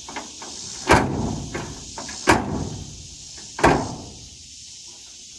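Steel tailgate of a 1980 Ford pickup being forced upward and slammed against the bed three times, about a second and a half apart, each bang trailing off briefly, with lighter knocks between; the stiff tailgate does not latch.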